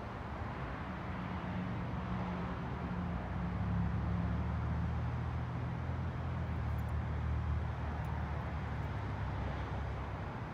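A vehicle's low, steady rumble with a hum that swells through the middle and eases off near the end.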